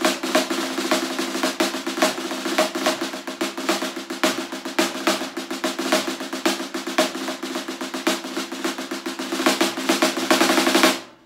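Wood-shell snare drum played with sticks in a rudimental solo: fast strokes and rolls over the drum's steady ring. It grows louder near the end and then stops abruptly.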